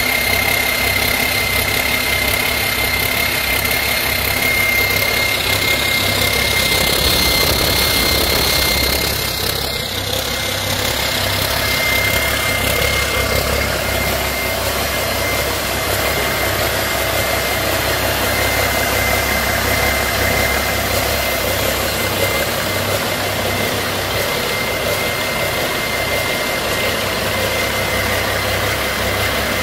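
1992 Cummins N14 mechanical inline-six diesel engine running at a steady idle, with a constant high-pitched whine over it.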